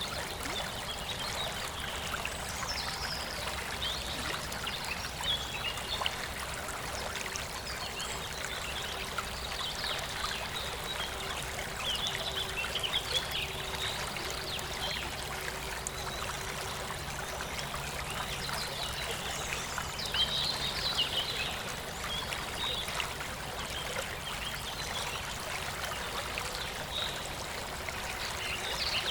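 Small stream trickling steadily, with birds chirping above it now and then, most clearly a few seconds in, around the middle and about two-thirds of the way through.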